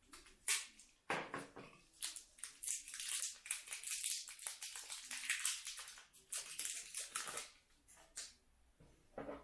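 Packaging crinkling and rustling as it is handled: a few separate crackles, then several seconds of dense crinkling, with one last crackle near the end.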